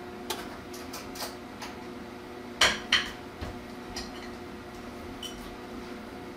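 A metal cookie scoop and fork clinking and tapping against a metal cookie sheet as dough balls are set in place. The clicks are short and scattered, with the two loudest close together about two and a half seconds in.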